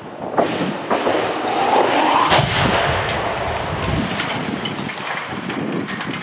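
A reinforced-concrete radio tower toppling after its demolition blast and crashing to the ground: sharp cracks about half a second and one second in, the heaviest impact about two and a half seconds in, inside a long, loud crash that tails off after about four seconds.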